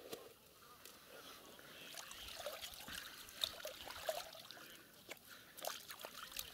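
Water trickling and sloshing in an ice hole as wet mud is scooped and sifted by hand for bloodworm larvae, with small irregular splashes and clicks.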